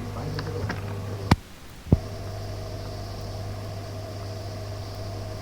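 Aviation radio channel hiss and hum between transmissions. About a second in, a sharp click cuts the carrier; a second click just under a second later opens it again, as transmitters unkey and key up, and a steady open-carrier hum follows.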